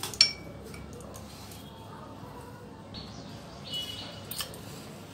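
Metal ice cream scoop against a glass dish: a sharp ringing clink about a quarter second in, then quieter scraping with short squeaks and another small clink as it digs through firmly frozen ice cream.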